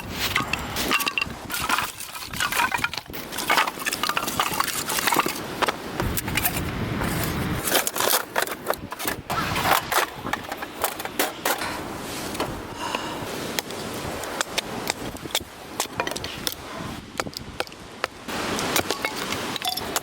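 Dry firewood crackling and snapping: many irregular sharp cracks over a steady rushing noise.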